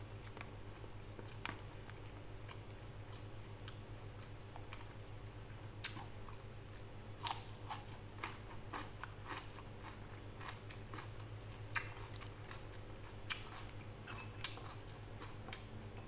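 Close-up eating sounds of a person eating with her hands: chewing, with irregular sharp clicks and crunches that come more often in the second half. A steady low hum runs underneath.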